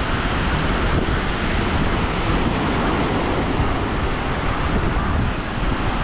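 Small waves breaking and washing up on a sandy beach, with wind buffeting the microphone in a steady low rumble.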